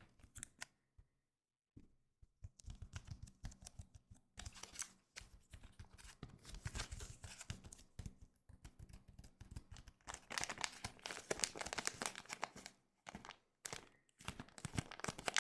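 Pokémon booster pack's foil wrapper crinkling and being torn open. It starts about two seconds in as a dense run of sharp crackles, with a couple of short pauses.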